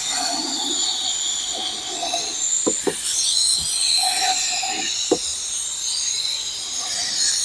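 Running water streaming and splashing over a spray-painted RC boat hull, rinsing off the dish-soap masking: a steady hiss with a few brief knocks near the middle.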